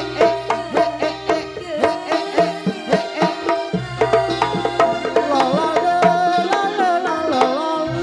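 Javanese Reog gamelan music: hand drums and ringing metal percussion played in a fast, even beat over held low notes. A wavering melody line comes in over it about halfway through.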